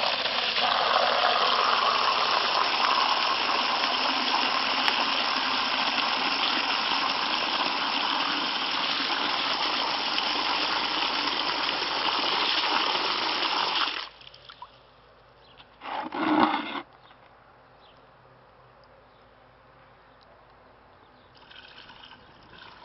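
A stream of water pours and splashes steadily into a plastic basin, then cuts off abruptly about two thirds of the way through. A brief loud noise follows a couple of seconds later, then only faint background.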